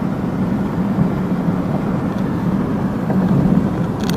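Car cabin noise while driving at road speed: steady engine and tyre drone with a low hum. A few sharp clicks near the end.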